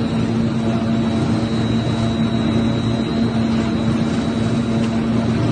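Steady drone of factory machinery running, with a constant low hum and a thin high whine above it.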